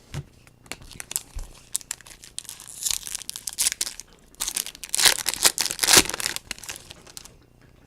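Foil trading-card pack wrapper being torn open and crinkled, in irregular crackling bursts that are loudest about five to six seconds in.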